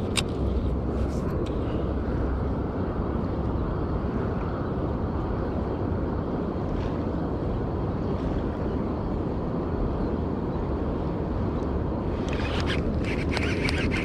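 Steady low rushing noise. Near the end comes a rapid run of sharp clicks from a baitcasting reel being cranked to bring in the line.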